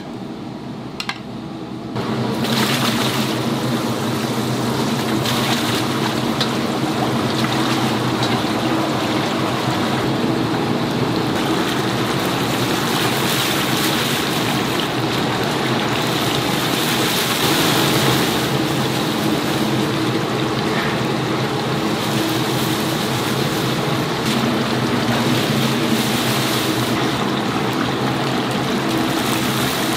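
Chicken deep-frying in hot oil in a cast-iron cauldron, fizzing loudly from about two seconds in. A steady low hum runs underneath.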